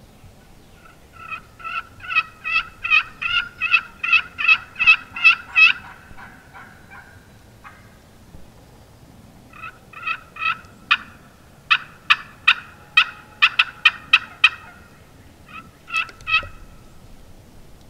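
Turkey yelping: a long run of evenly spaced yelps, about three a second, that swells and then fades, then a second run starting about ten seconds in, and a short burst of a few yelps near the end.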